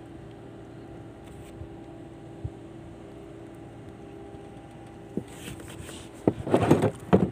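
A small boat's motor humming steadily at a low level. Several loud rushing bursts break in over it in the last two seconds.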